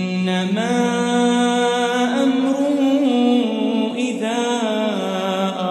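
A man's voice chanting Quranic Arabic in slow melodic tajwid recitation, drawing out long notes that waver and bend in pitch, with a short break about four seconds in before the next phrase.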